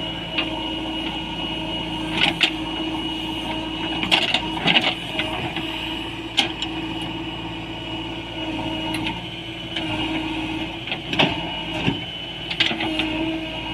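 JCB 3DX backhoe loader's diesel engine running steadily under hydraulic load with a high whine, while the digging gear clunks and knocks several times.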